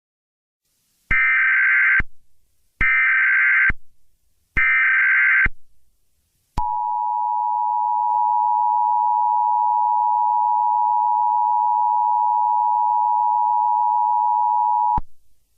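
Emergency Alert System header: three bursts of warbling SAME data, about a second each, then the steady two-tone EAS attention signal held for about eight seconds before it cuts off sharply.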